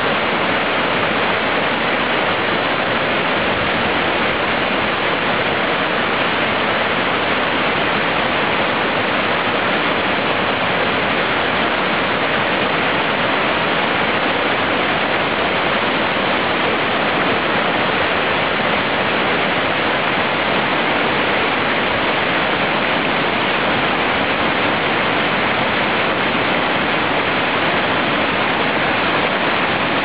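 Waterfall: a steady, loud rush of white water sliding down smooth rock slabs and splashing over boulders into a rocky stream.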